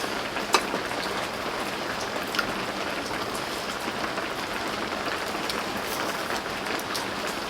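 Steady rain falling, with a few sharp ticks scattered through it, the loudest about half a second in.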